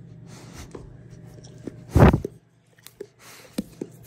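A dog's muzzle bumping and rubbing against a phone's microphone: one loud thump about two seconds in, then a moment of near silence and scattered small clicks and rustles, over a steady low hum.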